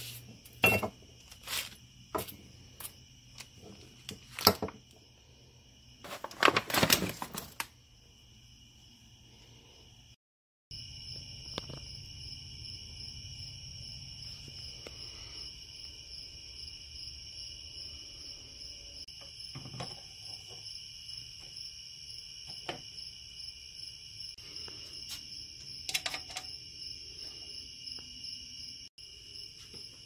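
Crickets chirring steadily. During the first several seconds there are sharp clicks and a louder clatter of small metal door-closer parts being handled on a wooden workbench. After a brief dropout about ten seconds in, the chirring continues with a few scattered clicks.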